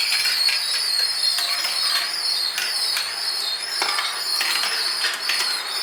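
Marbles rolling and clicking along a race track, a steady stream of small glass clinks, played back from a video through computer speakers.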